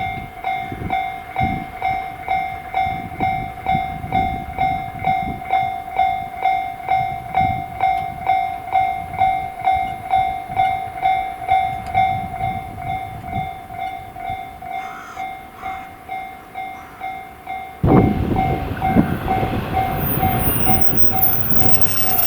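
Japanese railway level-crossing warning bell ringing at an even two strokes a second. About eighteen seconds in, an electric train arrives and passes over the crossing, its loud running noise rising suddenly over the bell.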